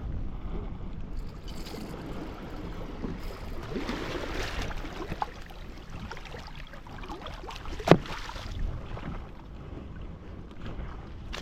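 Wind buffeting the microphone over sea washing against the rocks, with swells of surf hiss, and one sharp knock about eight seconds in.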